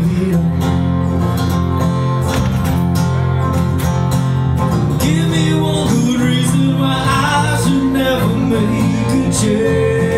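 Live band music: a strummed acoustic guitar over a steady electric bass line, with a man singing, mainly about halfway through and near the end.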